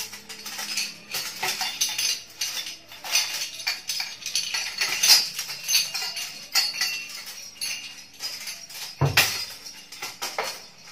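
A bundle of metal medals on ribbons clinking and jangling against each other and against the metal shaft of a guan dao as they are lifted off it, with a heavier knock about nine seconds in.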